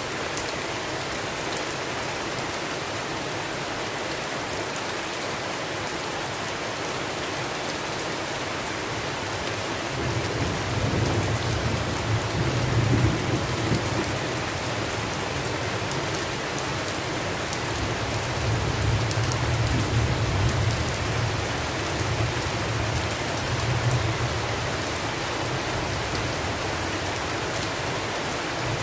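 Steady rain. About ten seconds in, low rolls of thunder begin and swell and fade several times.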